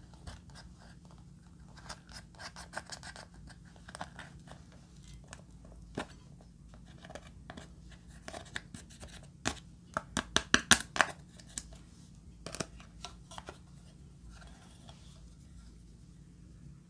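A small plastic tool scratching and picking at pressed eyeshadow in a plastic palette, making a run of crisp scratchy clicks that come thickest and loudest about ten to eleven seconds in.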